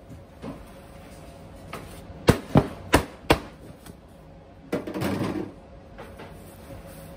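Four sharp knocks about a third of a second apart, then a short, noisy clatter about a second and a half later.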